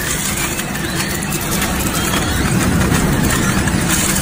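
Double-shaft shredder running, its toothed rotors grinding and crunching plastic waste in a steady mechanical din with a low hum and scattered cracks of breaking plastic.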